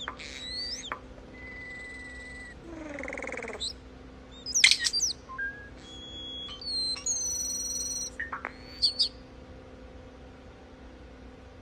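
European starling singing a varied medley: a held whistle of about a second, a fast falling rattle, sharp clicks and squeaky whistles, then a steady tone with overtones for about a second.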